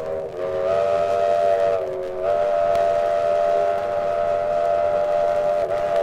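Steam locomotive chime whistle blowing, several notes sounding together in a long, steady chord that dips briefly in pitch three times: near the start, about two seconds in, and near the end.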